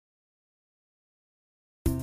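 Dead silence, then background music with plucked, tuneful notes starts abruptly just before the end.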